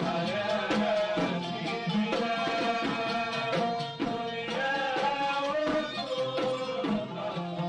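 Gulf sout music: an oud playing an ornamented melody over a steady hand-drum beat.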